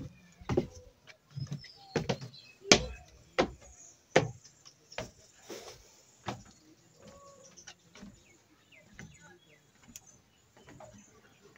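Footsteps on the wooden steps and planks of a footbridge, a thud about every 0.7 s, softer after about five seconds. Birds chirp faintly in the background.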